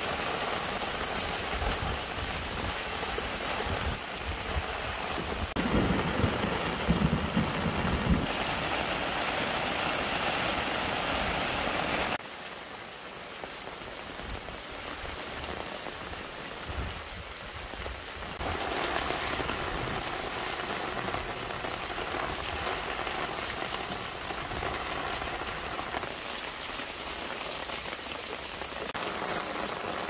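Heavy summer downpour, rain hissing steadily on leaves, paving and puddles. Its level shifts abruptly several times.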